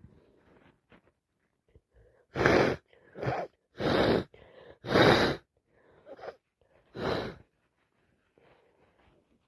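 A person with a heavy head cold sneezing in a rapid fit: four loud sneezes in about three seconds starting two seconds in, then another a little after seven seconds.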